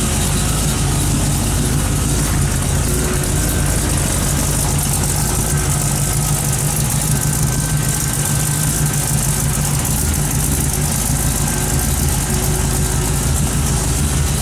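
Rebuilt, carburetted 5.9-litre Magnum V8 in a 1965 Dodge Town Wagon idling steadily.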